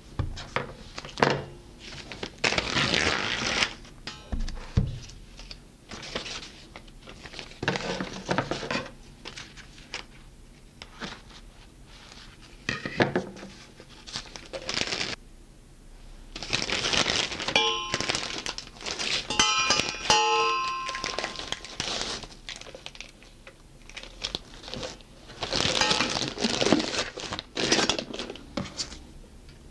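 Clear plastic piping bag crinkling in irregular bursts as it is handled and pushed down into a stainless steel measuring jug, with a few knocks near the start.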